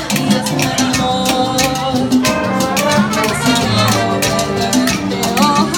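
Jazz band playing a Latin-style arrangement, with drums and percussion keeping a steady beat under held melody notes.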